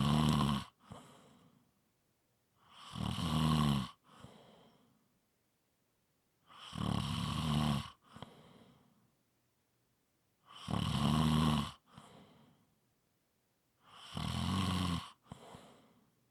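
Steady snoring: a loud, low-pitched snore lasting about a second comes about every four seconds, five in all. Each snore is followed by a short, softer breath.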